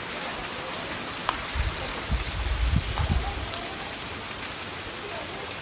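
Steady rushing hiss of a small waterfall pouring into a koi pond. A low rumble on the microphone comes in briefly, from about one and a half to three and a half seconds in.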